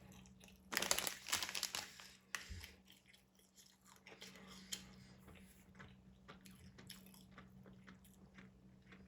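Close-up eating sounds: a loud crunchy bite-and-chew lasting about a second and a half, starting about a second in, then quieter wet chewing clicks.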